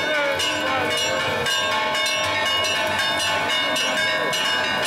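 Church bells ringing, struck over and over so that their tones overlap into a continuous clangour.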